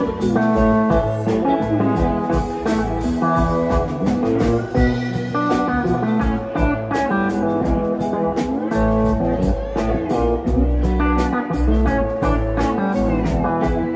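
Live rock band playing: electric guitar over keyboard, bass and drum kit, with bending guitar notes and a steady drumbeat. Heard from beside the stage, mostly through the stage monitors with a little of the main PA.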